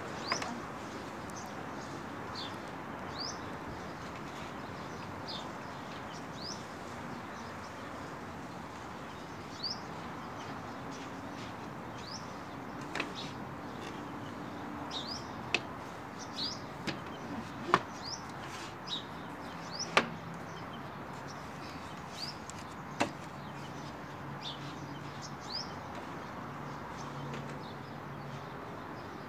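Birds chirping throughout, short rising chirps every second or two. Several sharp wooden knocks and clicks come from the folding wooden table and chair as they are handled; the loudest two are about 18 and 20 seconds in.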